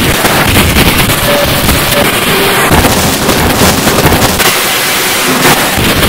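Harsh digital noise music: a loud, dense wall of static that fills the whole range from deep lows to hiss, shot through with rapid clicks and crackles.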